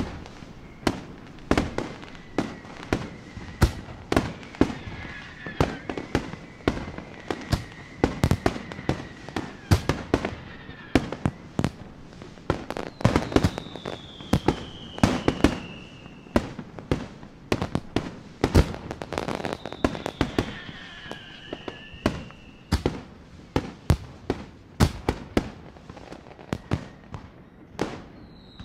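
Fireworks display: shells bursting in rapid, irregular bangs, several a second. Now and then a long high whistle slides slowly down in pitch over the bangs.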